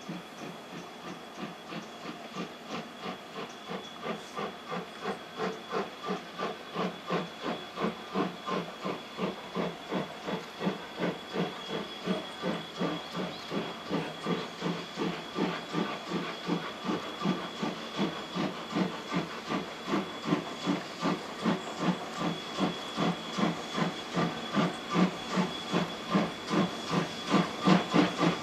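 C58 steam locomotive working hard up a steep grade, its exhaust chuffing evenly about two to three beats a second and growing louder as it approaches.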